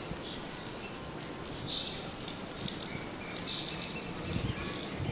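Natural outdoor ambience: many short, high chirps and whistled notes from small birds over a steady background hiss.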